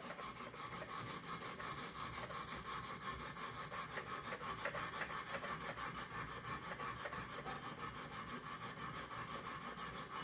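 Wicked Edge Gen 4 Pro's 400-grit stone scrubbing dry across a steel knife edge in rapid, even back-and-forth strokes, raising a burr.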